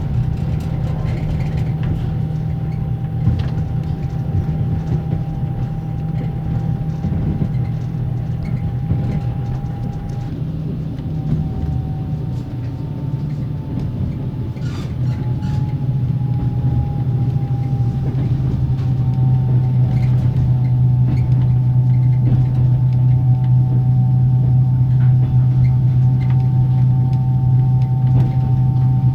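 Inside a Russian passenger sleeping-carriage compartment: the carriage's axle-driven generator gives a thin steady whine over the low rumble of the running train. From about halfway in, the whine splits into several tones that slide downward and the rumble grows louder, as the train begins to brake.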